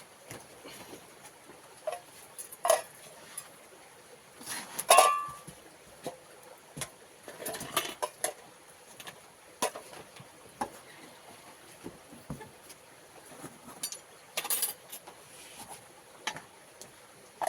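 Scattered clinks and knocks of dishes and eating utensils, irregular and short, the loudest about five seconds in with a brief ring.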